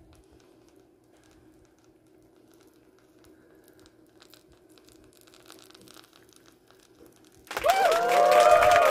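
Faint clicks and rustling as the glass baking dish is handled with a cloth towel. About seven and a half seconds in, a loud added sound effect begins, its tones arching up and down.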